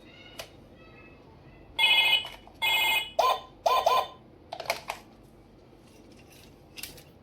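Toy phone ringing: two short electronic rings about two seconds in, followed by a few quick warbling tones and some light clicks.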